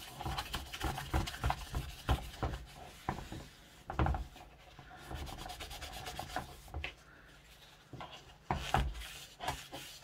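A cotton wool pad damp with dilute ammonia solution rubbing over a painted clock dial in quick, irregular scrubbing strokes as the dirt is cleaned off. The strokes soften for a few seconds past the middle, then pick up again.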